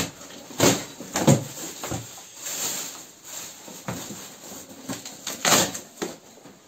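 Corrugated cardboard box being pulled and torn apart by hand. It gives a string of sharp crackles and knocks from the flaps and panels, with a stretch of rough scraping and rustling in the middle.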